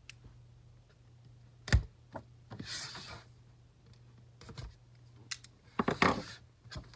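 Cardboard box being handled and its packing tape cut: scattered taps and knocks on cardboard, with a sharp thump a little under two seconds in. Short scraping rustles come around three seconds in and again near the end.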